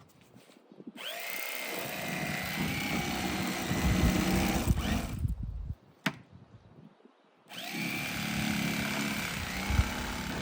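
A handheld electric power tool motor running in two bursts of several seconds each. Its pitch rises as it spins up at the start of each burst, and a sharp click falls between the two.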